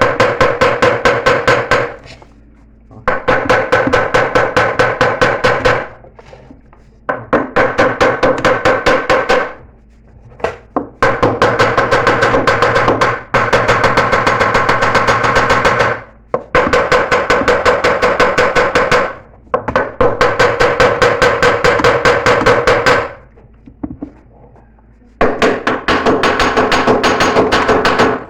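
Rapid hammer blows on a seized metal part of a Consul Facilite washing machine, given in runs of a few seconds at about five blows a second with short pauses between, each run carrying a metallic ring. The blows are being used to free the stuck part. The sound is really loud.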